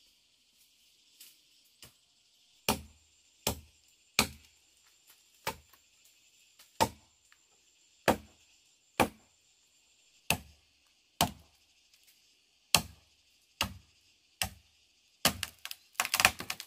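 A blade chopping into wood: about a dozen separate strikes, roughly one a second, then a quicker run of strikes near the end. A steady high hiss of insects runs underneath.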